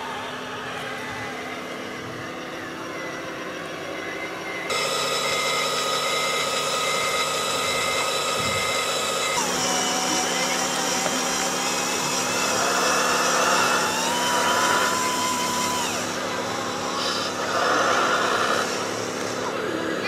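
Whine and hum of a radio-controlled model tipper trailer's electric hydraulic pump raising the loaded bed to dump soil. The sound steps louder about five seconds in, and its pitch shifts slowly up and down as the load shifts during the middle of the tip.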